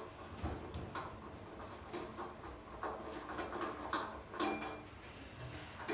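Small metallic clicks and scrapes of a screw being turned by hand to loosen a brass clock bell from its mount. About four seconds in a louder click is followed by a faint ring.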